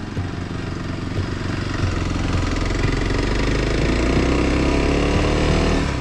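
Motorcycle engine running as the bike rides up a dirt road, its pitch rising steadily over the second half as it speeds up.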